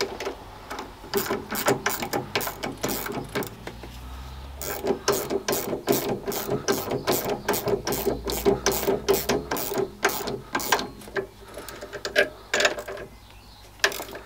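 Socket ratchet wrench clicking in quick runs of about three clicks a second as it is worked back and forth, tightening the nut that clamps a flywheel onto its arbor. The clicking breaks briefly about four seconds in and thins to a few scattered clicks near the end.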